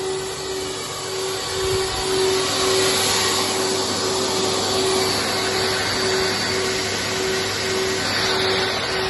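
Vacuum cleaner running steadily: rushing suction air over a constant motor hum, getting a little louder about two seconds in.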